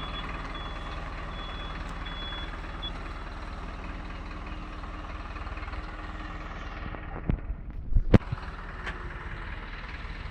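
Truck engine running while its reversing alarm beeps repeatedly, the beeping stopping about three seconds in. A few loud knocks about seven to eight seconds in.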